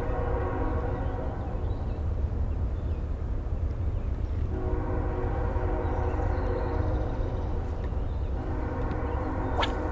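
Train horn blowing long steady blasts, a chord of held tones, once at the start and again for about five seconds from halfway in, over a steady low rumble.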